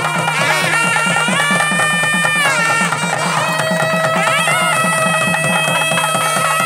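Loud traditional folk music: a wind instrument holding long notes that step up and down in pitch, over a fast, steady drumbeat.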